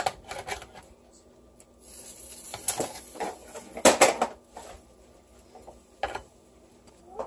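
A metal basting spoon scraping and clinking against a disposable aluminium foil roasting pan while the pan juices are spooned over a roast turkey: a handful of irregular clatters, the loudest about four seconds in.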